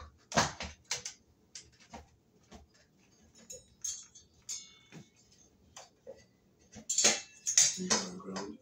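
Scattered small clicks and metallic clinks as wires and the ceiling fan's metal mounting bracket and canopy parts are handled overhead, with a louder scraping rustle about seven seconds in.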